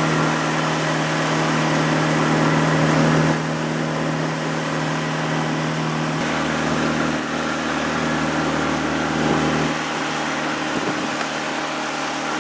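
Small river boat's outboard motor running steadily, a constant hum that shifts slightly a few times.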